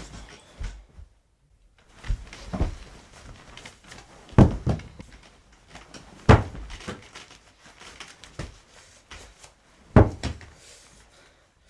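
A series of heavy thumps and bangs in a small room, about five loud ones at uneven intervals with smaller knocks and rustling between.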